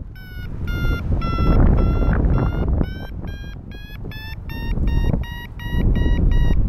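Paragliding variometer beeping its climb tone: a rapid train of short electronic beeps whose pitch shifts and whose pace quickens in the second half, the sign that the glider is climbing in rising air. Wind rushes over the microphone underneath.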